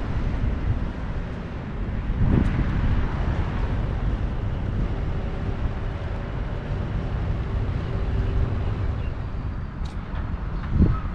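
Wind buffeting the microphone: a steady low rumble with stronger gusts about two seconds in and again near the end.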